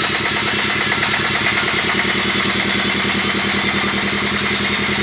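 Band sawmill running: a steady engine drone with a fast, even pulse.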